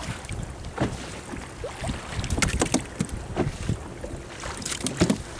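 Sea water slapping against a small boat's hull, with wind buffeting the microphone and a few sharp knocks and splashes.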